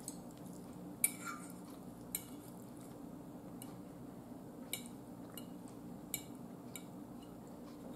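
Metal fork clinking against a dinner plate while food is picked up: a handful of light, sharp clicks spread out, the loudest about a second in, over a low steady hum.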